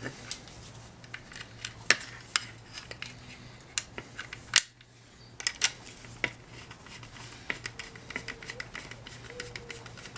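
Scattered small metallic clicks and clinks of a nut being turned by hand onto the short threaded stem of a motorcycle turn-signal light, trying to catch the thread, over a low steady hum.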